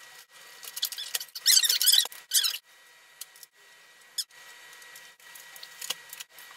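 Squeaks and scrapes of metal parts being handled inside a desktop computer case as the power supply is worked loose, heaviest between about one and a half and two and a half seconds in, followed by a few small clicks.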